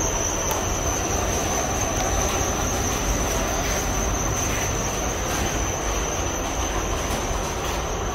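Steady mechanical din of an indoor wholesale produce market hall, with a constant high-pitched whine over it.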